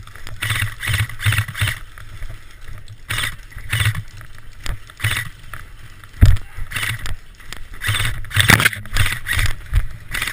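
Footsteps of a player moving at a quick pace, with rustling gear, in runs of steps about half a second apart and short pauses between them. A single sharp knock lands about six seconds in.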